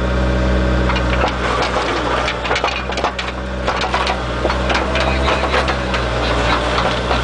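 Diesel engine of a Bobcat mini excavator running steadily under hydraulic load, with repeated sharp cracking and knocking of concrete sidewalk slabs as the bucket breaks and lifts them.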